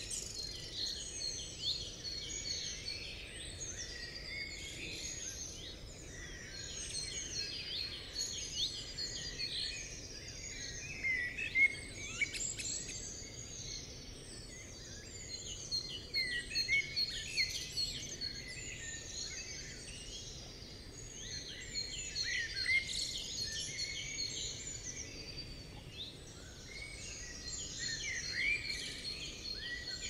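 Dawn-chorus-like forest birdsong: many songbirds chirping and trilling at once, a dense, continuous twittering over faint background hiss, with one sharp click about twelve seconds in.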